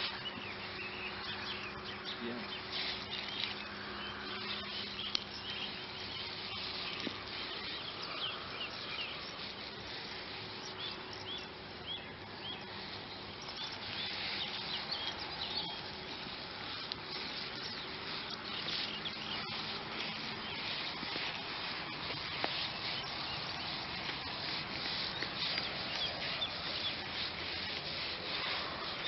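Open-field ambience: many small bird chirps scattered throughout over a steady low buzzing hum, which fades out about two-thirds of the way through.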